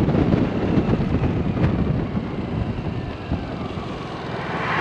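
Wind buffeting the microphone of a moving 125 cc scooter, a dense low rushing flutter, with the riding noise of the scooter underneath; it eases a little near the end.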